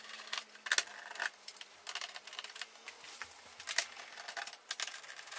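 Irregular small clicks and taps of a screwdriver and hands working on the plastic case of an all-in-one PC, undoing the screws just exposed.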